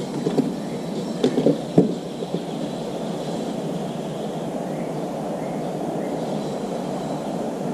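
A few light taps and knocks in the first two seconds as parts are handled on a workbench, over a steady rushing background noise.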